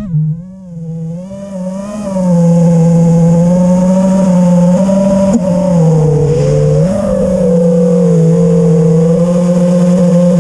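Brushless motors (T-Motor F40 III 2600 Kv) of an FPV racing quadcopter whining in flight, the pitch stepping up and down with throttle. Quieter for about the first two seconds, then loud and steady, dropping in pitch briefly in the middle. The quad is one the owner says still vibrates after being rebuilt.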